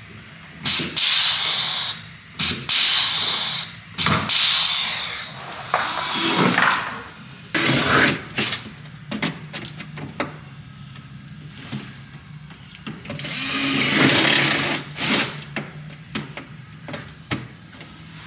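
Handheld power drill run in several short bursts of about a second each, its speed rising and falling under load, with a longer run about 13 seconds in: drilling and fastening the plastic rocker panel cover to the truck's body for pop rivets.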